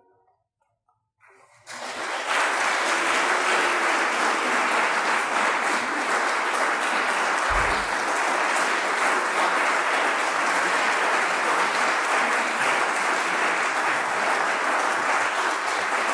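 After a moment of silence, audience applause breaks out about two seconds in and continues steadily, with a brief low thump about halfway through.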